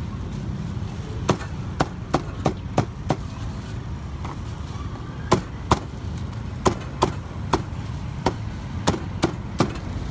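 Meat cleaver chopping a grilled bird into pieces on a round chopping block: about fifteen sharp chops in uneven bursts.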